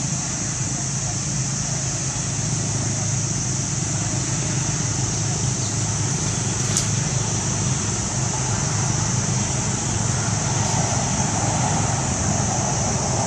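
Steady outdoor ambience: an even high-pitched drone over a low, constant rumble like distant road traffic, with no distinct events.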